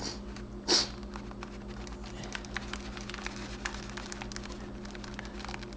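Two-part epoxy being stirred with a small piece of plastic in a clear plastic tray: a run of light, irregular clicks and taps over a steady low hum, with a short hiss about a second in.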